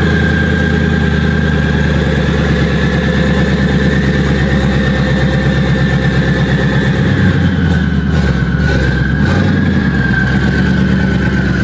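Car engine idling steadily, a rapid even pulse in its low note, with a steady high whine over it.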